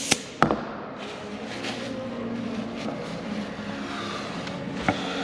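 A hiss of air at a hydraulic control valve block dies away within the first second, followed by two sharp metallic clicks. A steady low hum continues underneath, with one more click near the end.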